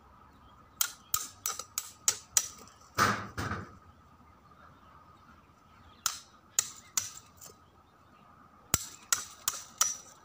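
A hammer striking the back of a large knife blade held against a papaya trunk, driving the blade into the trunk. The result is runs of sharp knocks, four to six in quick succession with pauses between, and one heavier, longer strike about three seconds in.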